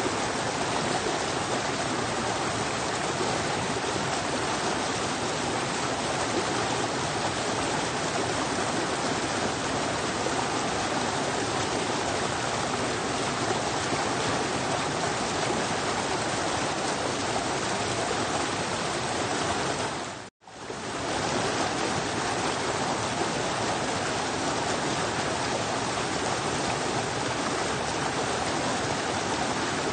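Fast-flowing forest stream rushing and splashing down a small cascade over mossy boulders, a steady full rush of white water. The sound cuts out for a split second about two-thirds of the way through, then resumes unchanged.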